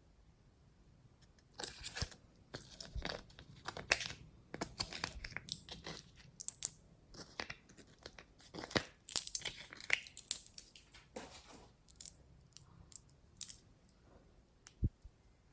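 Glossy slime being squished, stretched and pressed by hand: a run of sticky crackling pops and clicks that starts about a second and a half in and thins out near the end.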